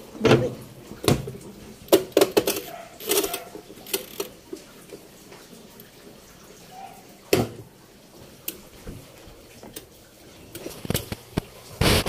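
Irregular knocks and clunks of handling around a washing machine. Several come close together in the first few seconds, single ones follow in the middle, and a cluster comes near the end, with little sound between them.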